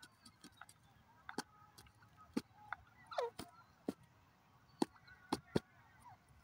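Grey francolin pecking at dry, stony soil: irregular sharp taps of its bill on the ground, with one short soft call that falls in pitch about three seconds in.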